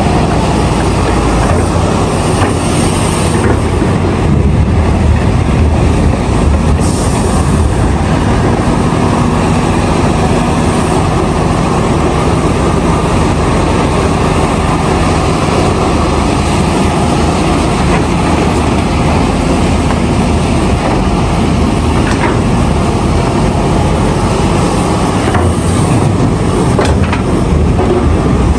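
Large hydraulic excavator (CAT 352F) working under load: its diesel engine runs steadily loud and the hydraulics labour as the bucket digs rock and dumps ore into a dump truck, with a few short clatters of rock.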